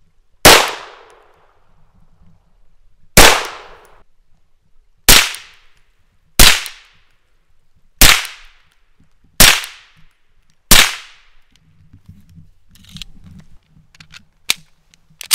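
A .22LR pistol fired seven single shots about one to two seconds apart, first bare and then fitted with a suppressor. Near the end come quieter metallic clicks and two sharper clicks as the pistol is handled.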